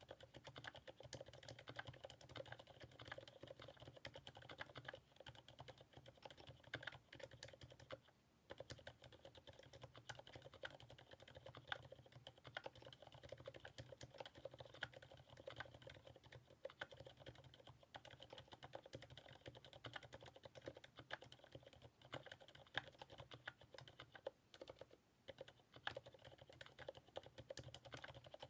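Continuous typing on a TX Keyboard HJ75 mechanical keyboard with lubed Cherry MX Silent Black switches and GMK keycaps: a quiet, dense run of damped keystrokes. There is a brief pause about eight seconds in.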